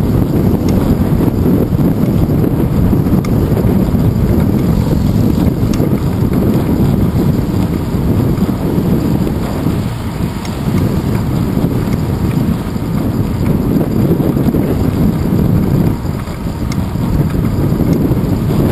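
Wind buffeting the microphone of a handlebar-mounted GoPro Hero 2 on a moving bicycle: a loud, steady low rumble.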